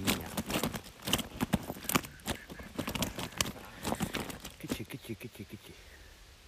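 Common carp flapping on a wet unhooking mat: a rapid run of wet slaps that thins out and stops about five seconds in.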